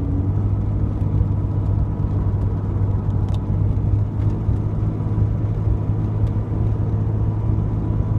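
Jeep Cherokee XJ driving uphill at a steady pace, a steady low engine drone mixed with road and tyre noise, heard from inside the cab.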